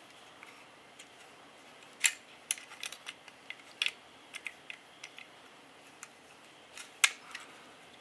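Small, sharp clicks and taps of parts being worked by hand into a Glock 17 Gen 4's polymer frame as the trigger bar and its spring are fitted. A scatter of light clicks, with the two sharpest about two seconds in and near the end.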